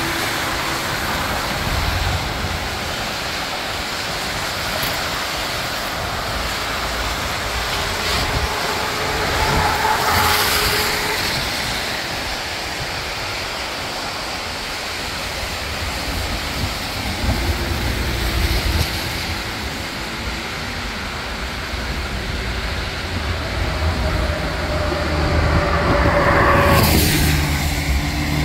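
Street traffic on a wet road: passing cars give a swelling hiss of tyres on the wet surface, loudest about ten seconds in and again near the end, over a steady traffic hum.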